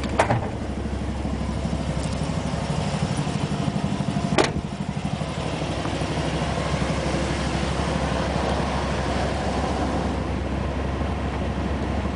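Ford 351 Windsor V8 with a Holley four-barrel carburetor idling steadily as a cold engine, just started after nearly flooding. There is one sharp knock about four seconds in.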